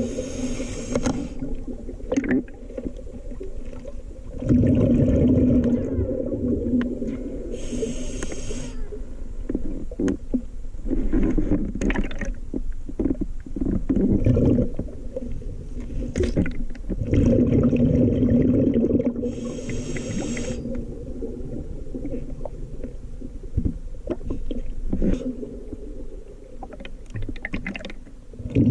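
A scuba diver breathing through a regulator underwater: short hissing inhales, then long gurgling, rumbling rushes of exhaled bubbles, several breaths in turn.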